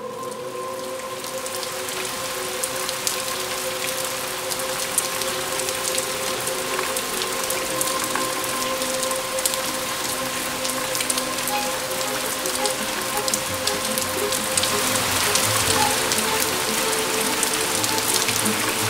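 Steady rain falling, thick with small drop ticks and growing slowly louder, over a few held droning tones.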